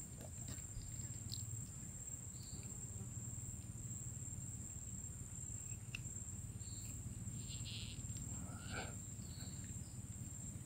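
Insects singing in a steady, high-pitched drone, with a low hum underneath and a few brief, faint chirps.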